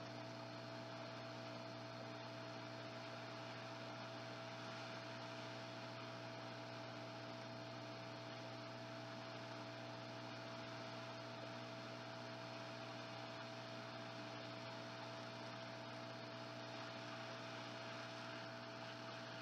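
Faint, steady electrical hum with a constant whine and an even hiss underneath, unchanging throughout.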